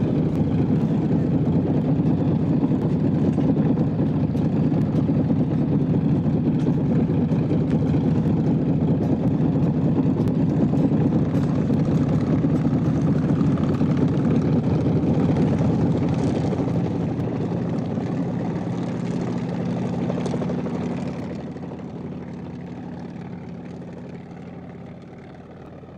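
Helicopter engine and rotor running steadily at high level. The sound fades in steps over the last several seconds as the helicopter flies away.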